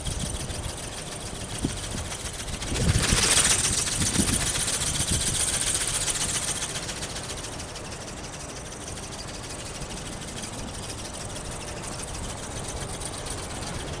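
Dragon-shaped model ornithopter in flight: its small brushless electric motor and gear drive whir while the film wings flap rapidly. The sound grows louder about three seconds in and fades again after a few seconds. Low wind rumble on the microphone.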